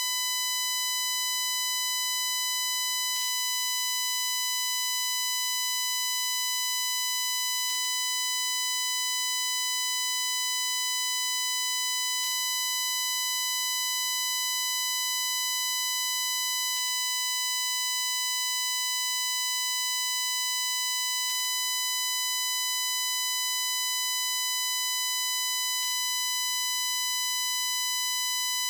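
Steady, shrill digital buzz from a glitched recording on a Shure MV88+ stereo microphone plugged into a phone: one unbroken high tone with a ladder of overtones. A faint click comes about every four and a half seconds.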